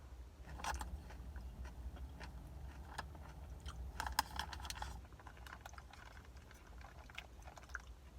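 Crunchy chewing of chili cheese Fritos corn chips close to the microphone, with a cluster of crunches about half a second in and another around four seconds in.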